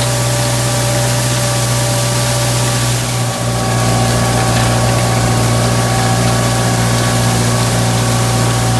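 Farm tractor engine running steadily under load, a low hum with a few steady tones over a noisy wash. There is a brief dip about three seconds in, after which it runs slightly louder.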